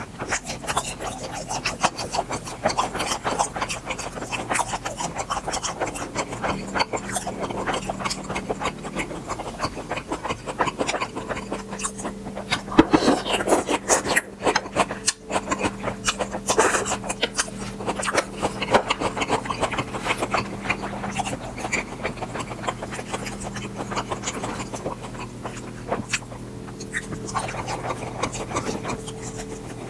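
Close-miked mukbang eating sounds of grilled beef tripe: a dense, crackly stream of small wet clicks and rubbing noises, with a faint steady hum underneath.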